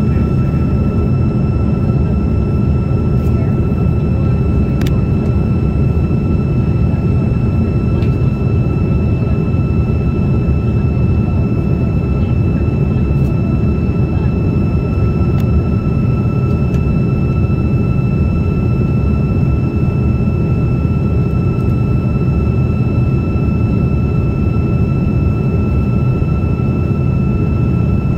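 Steady in-flight cabin noise aboard an RAF Voyager (Airbus A330) tanker: an even low rush of engines and airflow, with a thin steady whine above it.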